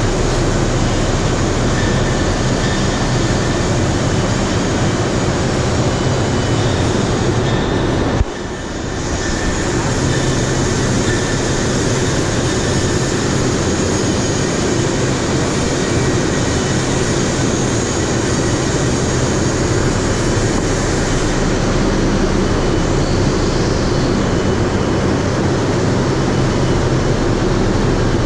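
Steady, loud industrial machinery noise with a low hum underneath: an overhead crane running as it hoists and carries a steam turbine's upper inner casing. The noise dips briefly about eight seconds in, then returns.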